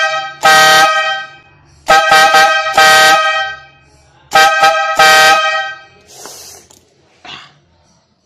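12-volt electric air horn, its compressor driving two trumpets that sound together in a two-note chord, blown in short, very loud blasts: about seven, each under a second, in three groups.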